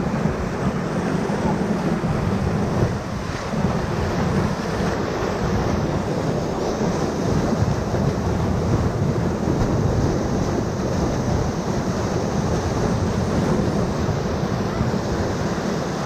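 Whitewater rapid rushing and churning close around a raft surfing in the rapid, a steady loud rush with wind buffeting the microphone.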